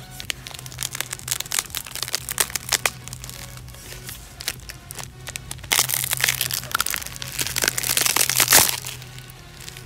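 The gallium-embrittled aluminium lid of a MacBook Pro screen crackling and crunching as it is bent and broken by hand: quick runs of small cracks, then a louder, denser stretch of crunching in the second half.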